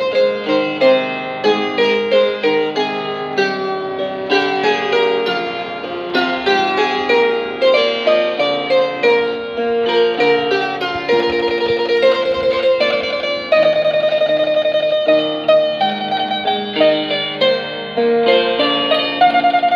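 Wooden harp played by hand: a steady stream of plucked notes, a quick melody over lower accompanying notes.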